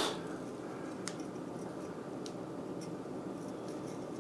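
A few faint soft ticks of a kitchen knife cutting through broccoli stems on a cutting board, over a low steady room hiss.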